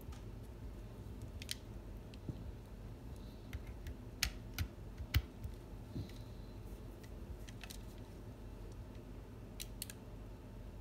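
Light clicks and taps from handling a small plastic toast-shaped night light and its USB charging cable, with a cluster of sharper clicks about four to five seconds in and two more near the end, over a low steady hum.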